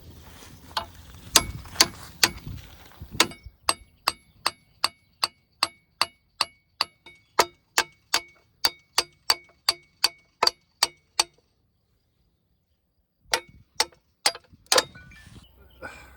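Steel hammer striking a bucket pin on a mini excavator's linkage, a steady run of ringing metal strikes about two or three a second, driving in a pin that is a tight fit; a short break, then a few more strikes.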